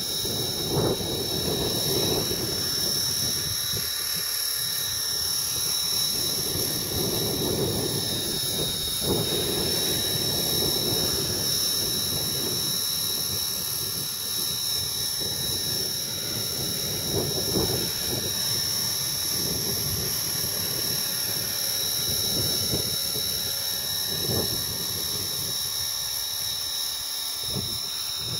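Align T-Rex 450 electric RC helicopter flying low, its motor and rotor giving a steady high-pitched whine. Strong gusty wind buffets the microphone, swelling and fading every few seconds.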